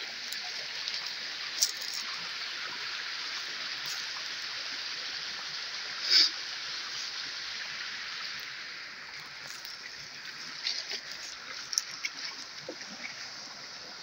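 Village river flowing steadily with a continuous rushing hiss, and a sharp click about six seconds in.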